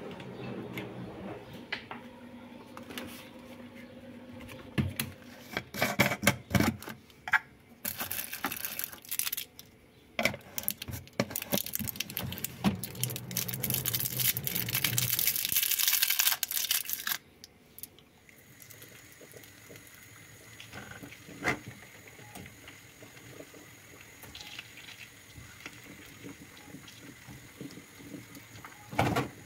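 Kitchen handling sounds: jars and lids clicking and knocking, then a long, loud crinkling of plastic candy wrappers as wrapped sweets are handled and one is unwrapped. After that only a quieter steady background remains.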